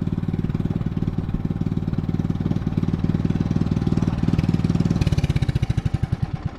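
Small boat engine running steadily; about five seconds in it throttles down, its firing strokes slowing and becoming separately audible.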